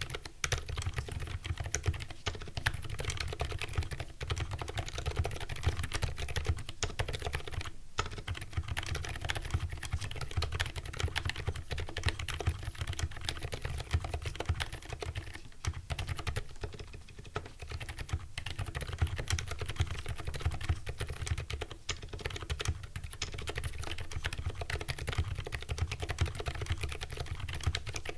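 Continuous typing on a custom mechanical keyboard with lubed Silent Alpaca linear switches, PBT keycaps and a polycarbonate plate. It is a dense run of key strokes with brief pauses about 8 and 16 seconds in.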